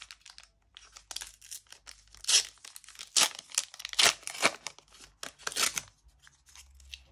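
Wrapper of a Panini trading-card booster pack torn open and crinkled by hand: a string of short, crackly rips and rustles, loudest between about two and six seconds in.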